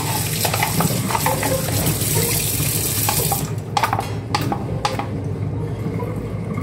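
Water running from a tap, an even hiss that cuts off sharply about three and a half seconds in, followed by a few sharp knocks. A steady low hum runs underneath.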